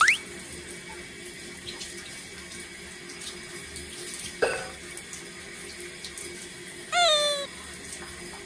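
Handheld shower head spraying water steadily onto a wet dog's head and coat. A quick rising squeak comes right at the start, and a louder half-second pitched sound, dropping slightly, comes about seven seconds in.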